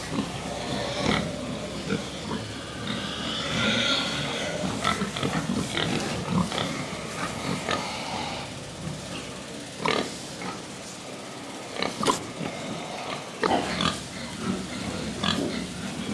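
Pigs in a piggery grunting and squealing in an irregular din, with a few sharp, short loud cries standing out in the second half.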